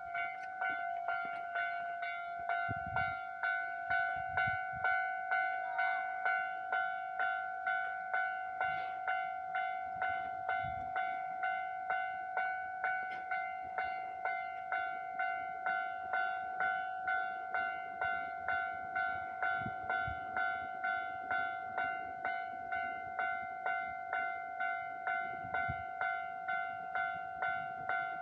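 Japanese railway level-crossing warning bell ringing steadily, an electronic clang repeating about three times every two seconds, signalling that a train is approaching.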